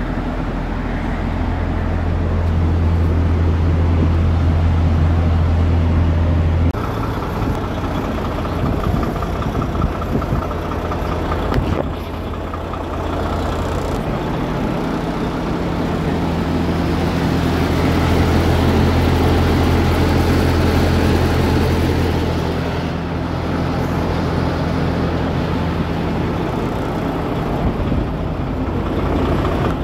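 Diesel semi-truck engines running close by: a steady low hum that swells and shifts in pitch a few times as the trucks idle and move.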